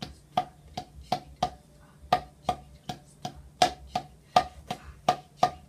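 Wooden drumsticks tapping a practice pad, hands alternating in an even beat of about three strokes a second, some strokes louder than others.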